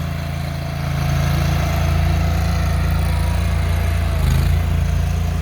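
Engine of construction machinery running steadily with a low drone, growing a little louder about a second in.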